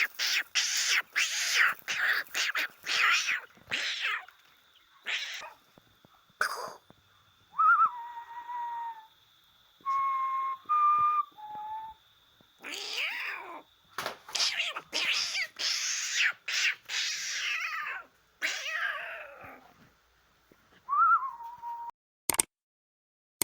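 A domestic cat meowing repeatedly in short calls, with several brief whistle-like held tones between them and a sharp click near the end.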